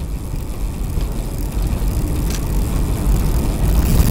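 Wind rushing past a fast-moving bicycle: a steady, loud, low rumbling rush that grows louder and cuts off suddenly at the end.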